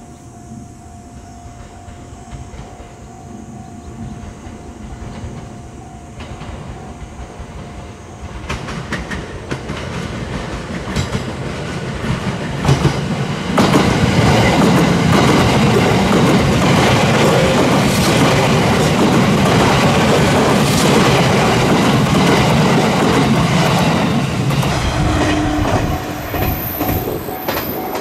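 Sunrise Izumo 285-series electric sleeper train approaching and passing close by, its wheels clattering over rail joints. It starts faint, grows louder from about eight seconds in and becomes loud at about thirteen seconds as the double-deck cars go by, then drops near the end.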